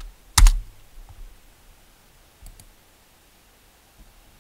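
Computer mouse clicks: one sharp click about half a second in, then a few faint clicks.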